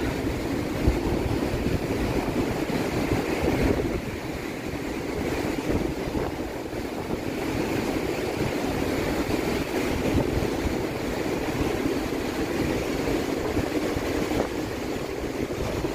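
Steady wind noise on the microphone over the rush of seawater churned up in the wake of the Pont Aven ferry under way, heard from its open deck.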